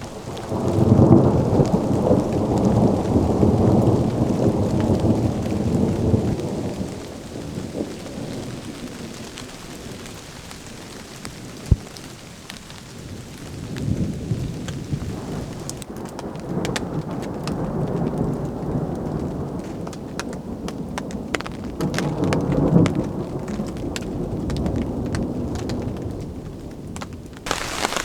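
Thunder rumbling over steady rain as a storm approaches: a long roll starts about a second in and dies away after about six seconds, then a second, longer roll builds through the second half and peaks near the end. Sharp drop ticks come through the rain in the second half.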